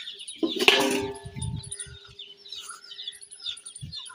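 A large steel pan knocks once about half a second in and rings on with a steady metallic tone for about three seconds. Birds chirp in the background.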